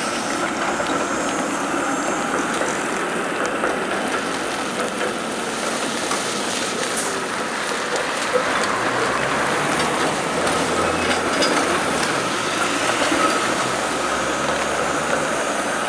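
A Toronto CLRV streetcar running along its track and passing close, over a steady wet hiss; a low rumble from its wheels and running gear builds from about nine seconds in as it draws near.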